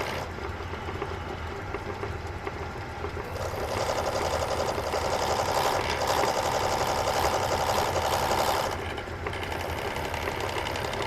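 1930s Sheldon metal lathe running at 650 RPM with a steady motor hum. Its brazed carbide tool cuts down the corners of a brass hex for about five seconds in the middle, an interrupted cut that adds a louder rapid rattle.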